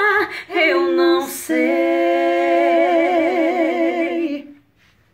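A man and a woman singing together without accompaniment, ending the song on a long held note with vibrato that fades out about four and a half seconds in.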